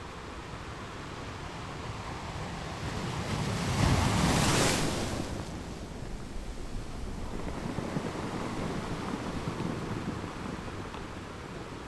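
Sea waves breaking on a beach: a wave builds and crashes loudly about four seconds in, then washes back, with a smaller wave later; wind buffets the microphone.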